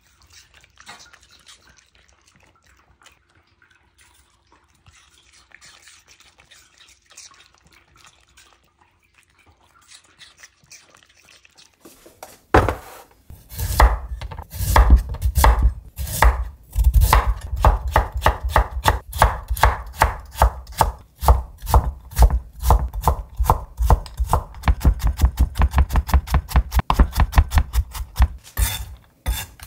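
Kitchen knife chopping carrot on a wooden cutting board, starting about twelve seconds in after only faint small sounds. First separate cuts slicing rounds, then rapid dicing strokes that come faster and closer together near the end.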